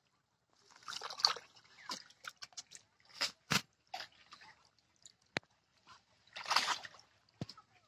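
Hands groping and splashing in shallow, muddy pond water while feeling for fish: uneven sloshing in bursts, the strongest about a second in and again near the end, with scattered sharp clicks and drips between.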